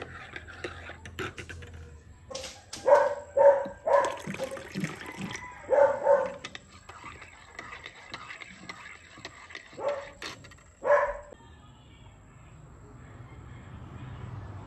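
A dog barking: a quick run of barks in the first half, then two more barks later. Beneath it, a metal spoon scrapes and clinks softly as it stirs a drink in a ceramic mug.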